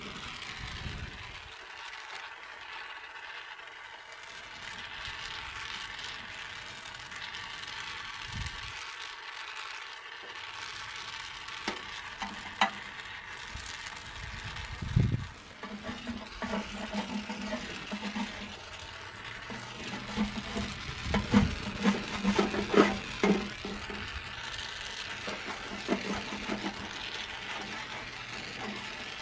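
A hose-fed torch hissing steadily as it heats the soldered seam of a radiator's top tank to melt the solder. From about twelve seconds in, a metal tool scrapes and taps at the joint in irregular clicks as the tank is pried loose.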